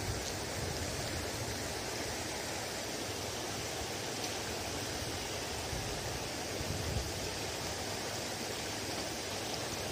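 Steady, even rushing outdoor noise with no distinct events, and a faint low bump about seven seconds in.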